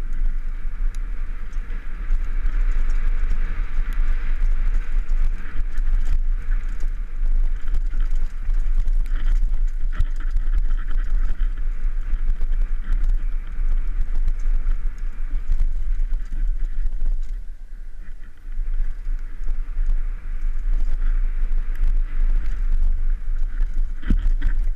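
Mountain bike descending a dirt and gravel trail, heard from a helmet-mounted camera: heavy wind buffeting on the microphone, with a steady rush of tyres on dirt and frequent clicks and rattles as the bike runs over rough ground. The rush eases briefly about two-thirds of the way through, then picks up again.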